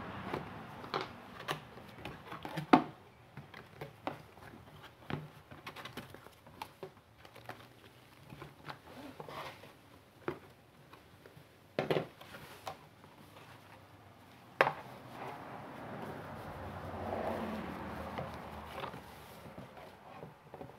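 Cardboard box being cut open and unpacked by hand: a blade slitting the tape, then flaps, foam inserts and packing handled, with scattered clicks and knocks, the sharpest about three seconds in. A longer rustle of a plastic bag being lifted out comes near the end.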